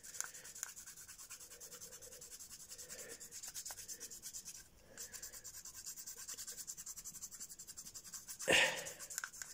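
Pencil lead rubbing rapidly back and forth on paper taped inside a two-stroke scooter cylinder's bore, hatching over a transfer port to trace its outline for a port map. The strokes are faint and fast, pause briefly about halfway, and a short louder noise comes near the end.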